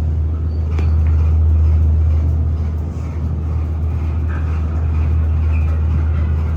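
A 1975 Otis hydraulic elevator, KONE-modernised, running with a loud, steady low hum and a faint click about a second in. It is the sound the owner of the recording calls tired and worn out from heavy use.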